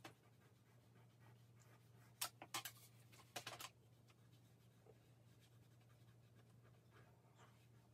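Faint scratching of a pencil shading on drawing paper: a few short strokes, clustered about two and about three and a half seconds in, over a faint steady low hum.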